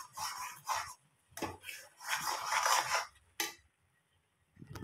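Steel spoon scraping and stirring thick, nearly done besan halwa in a steel kadhai: irregular scraping strokes, with a sharp clink of metal about three and a half seconds in, then a brief pause.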